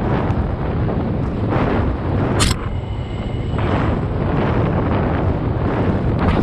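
Wind buffeting a handlebar-mounted action camera's microphone while a Kona Mahuna 29er mountain bike rolls along a paved path, with tyre and road rumble underneath. A single sharp click about two and a half seconds in.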